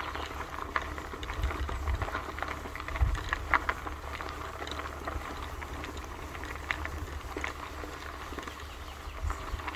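Footsteps crunching on a dirt-and-gravel forest track, irregular crisp steps roughly one or two a second, over a steady low rumble on the microphone.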